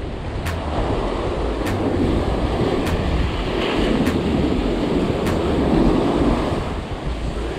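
Ocean surf breaking and washing up the beach, with wind buffeting the microphone. A faint click repeats about once a second.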